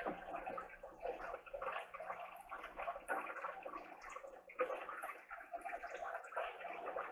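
Water sloshing and dripping in a turtle tank as hands reach in and lift out a water turtle.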